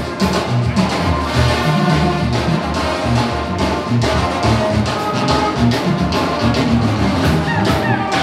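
Mexican banda-style music: brass with a steady drum beat and a moving low bass line.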